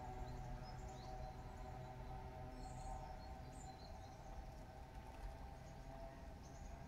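Faint lakeside ambience: a steady low rumble and droning tones, with a few short, high bird chirps.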